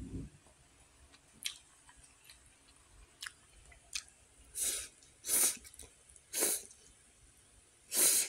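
A person eating spicy instant noodles: small mouth clicks and chewing, then four loud sucking slurps about a second apart from about four and a half seconds in, the last the loudest.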